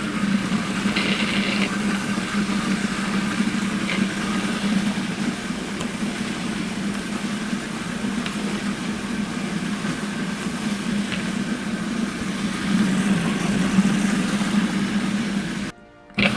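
Food processor motor running steadily with a low hum, blending red bell peppers into a jalapeño mayonnaise. The sound drops away for a moment near the end, then comes back louder.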